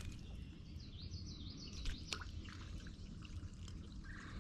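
Faint birdsong: a short run of high chirps about a second in, over a low steady background rumble, with a few light clicks and knocks.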